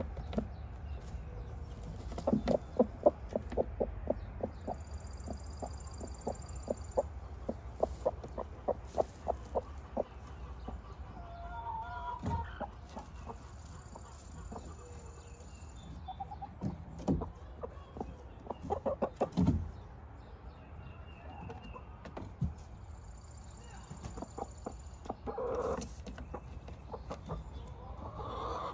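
A hen clucking in quick runs of short clucks, about four a second: a long run of several seconds starting about two seconds in, and shorter runs later.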